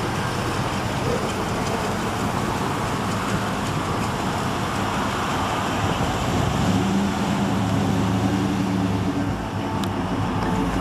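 Classic cars' engines and exhausts running as they roll slowly past at low speed. From about six and a half seconds in, a deeper, steady exhaust rumble comes in as a 1950s Chevrolet drives close by.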